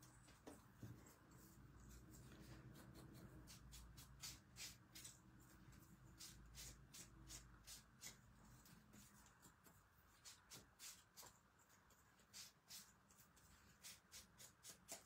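Faint, quick brushing strokes of an ink blending tool's foam pad rubbed along the edge of a cardstock strip, many short strokes in a row, over a low room hum.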